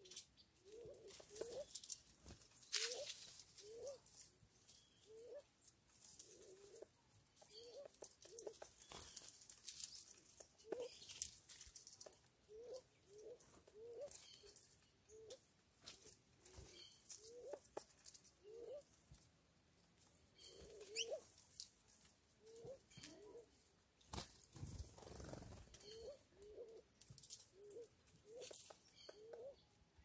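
A dove feeding at a seed tray, with faint scattered pecking clicks. Short, low rising calls repeat irregularly, about one a second.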